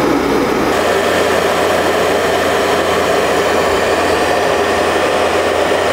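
Sherp N 1200's three-cylinder diesel engine running with a loud, steady rushing noise as its exhaust gas is fed into the flattened tires to reinflate them.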